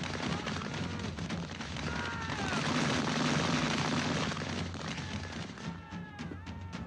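Battle din of 18th-century flintlock musket fire: a continuous rolling crackle of shots, with a few brief cries over it and sharper separate cracks near the end.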